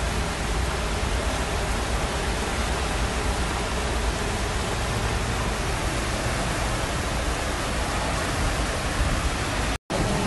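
Floodwater rushing through a road underpass, a steady, even rushing noise. It cuts out for a moment near the end.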